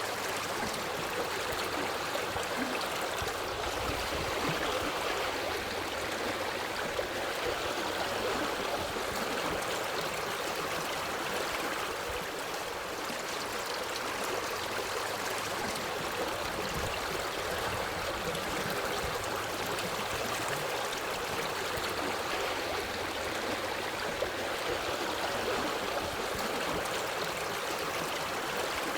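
Forest stream of water running steadily, an even rush of flowing water that holds the same level throughout.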